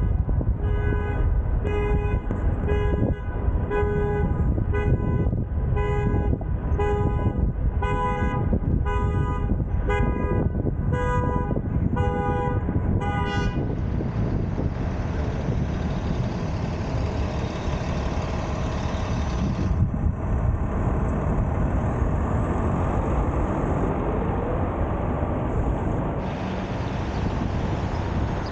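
A horn sounds about twenty short toots in a steady rhythm, roughly one and a half a second, on two slightly different pitches. After about thirteen seconds it stops, leaving the steady road and wind noise of a car driving through city traffic.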